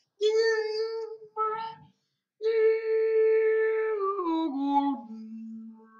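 Short operating-system logo jingle of sustained, pitched notes: two brief notes, then a long held note that steps down in pitch about four seconds in and fades out on a low tone.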